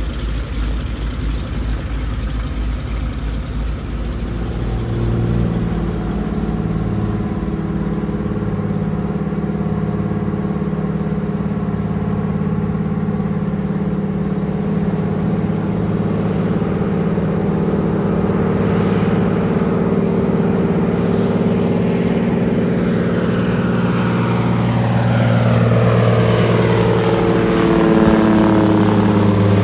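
Small plane's propeller engine running, heard from inside the cabin, steady at first and then climbing in pitch over the second half as it revs up for takeoff.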